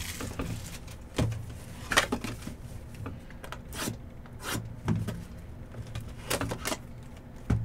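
Trading cards being handled and slid through by hand: a string of short, irregular sliding and tapping sounds, a few each second, over a faint low hum.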